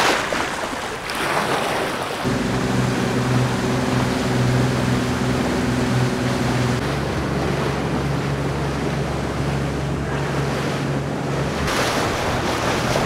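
Small waves washing over shoreline rocks, then, about two seconds in, a speedboat under way: its engine hums steadily under the rush of water along the hull and wind on the microphone.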